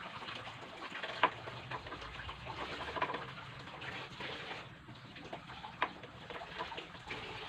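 Small metal clicks and knocks from tools and engine parts being handled: a sharp click about a second in, another near six seconds, and scattered lighter ticks over a faint steady hiss.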